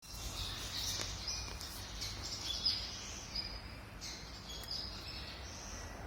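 Warblers chirping and twittering: a steady run of short, high, overlapping calls and brief trills, over a low background rumble.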